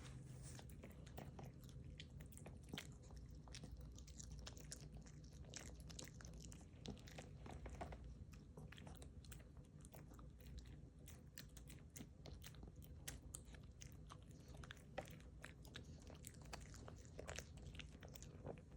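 Maltese dog chewing a Greenie dental chew: faint, irregular crunches and clicks of teeth on the chew.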